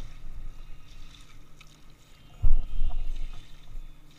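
Low thuds and rumble picked up through the deck of a Feathercraft folding kayak as it is shifted and set down on a concrete boat ramp, the loudest thump about two and a half seconds in.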